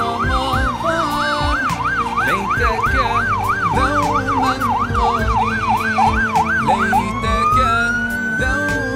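Police siren on the yelp setting, its pitch swinging up and down about three times a second. About seven seconds in it switches to a single slow rising wail that cuts off near the end.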